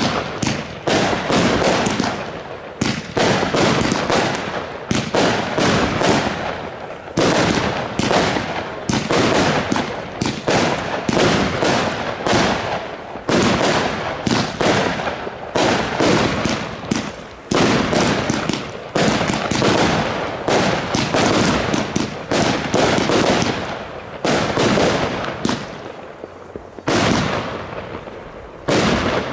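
Blackboxx Pyro-Spektakel Level 1 firework battery firing a rapid, nearly unbroken run of shots and star bursts, with a few short lulls between volleys.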